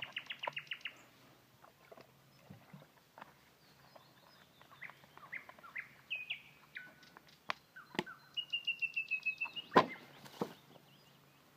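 Small birds singing: rapid trills at the start and again about three quarters through, with scattered chirps between. A few sharp knocks, the loudest a little before the end.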